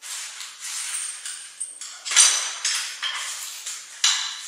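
Small metal parts clinking and knocking as they are handled, in a loose series of sharp clicks, with the sharpest clink about two seconds in.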